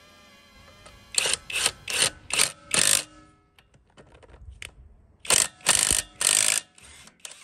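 Topshak TS-PW1 18 V brushless cordless impact wrench hammering in short trigger bursts as it undoes car wheel bolts: five quick bursts about a second in, then three more later on.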